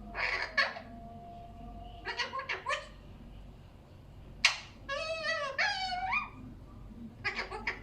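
Indian ringneck parakeet vocalising in short bursts: brief chattering calls, a sharp screech about four and a half seconds in, then a warbling run of pitched syllables rising and falling for over a second, and another quick burst near the end.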